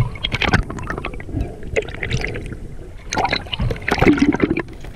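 Muffled water sloshing and gurgling around a GoPro camera moving under water, with irregular short knocks and rushes of bubbles.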